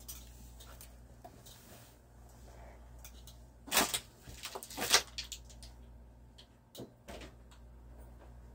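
Handling noises: a few short scrapes and rustles with small clicks, the loudest two about four and five seconds in, over a faint steady hum.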